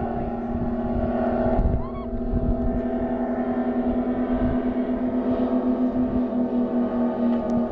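Engines of a low-flying blimp droning overhead, a steady pitched hum with a regular pulsing beat. Wind rumbles on the microphone, and a short chirp sounds about two seconds in.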